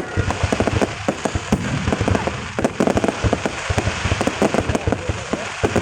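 Fireworks going off in a dense, irregular barrage of bangs and crackles, many a second, with no let-up.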